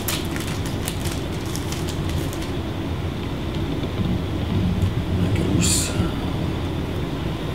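Trading cards and foil pack wrappers handled on a table over a steady low room rumble: light clicks of cards in the first couple of seconds, then a short rustle a little past halfway.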